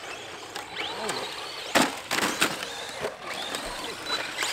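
Electric RC cars crashing and tumbling on hard-packed dirt: about four sharp plastic knocks as the chassis hits the ground, the loudest about two seconds in, with the motors whining up and down in pitch.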